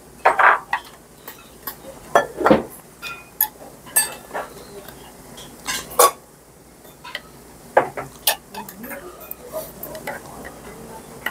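Metal chopsticks and spoons clinking and scraping against brass rice and side-dish bowls during a meal, in scattered irregular knocks, a few of them louder.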